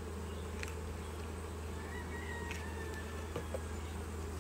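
Steady buzzing of many honeybees around an open hive, with a faint click a little past three seconds in.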